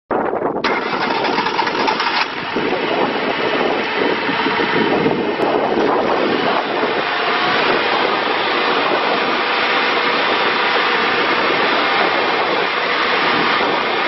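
Kohler engine of a Vermeer BC600XL wood chipper running loud and steady; its sound shifts within the first couple of seconds, then holds even.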